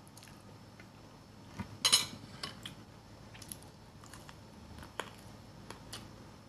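A metal fork clinks against the bowl in a short cluster of sharp clicks about two seconds in, the loudest sound, followed by scattered soft clicks of eating.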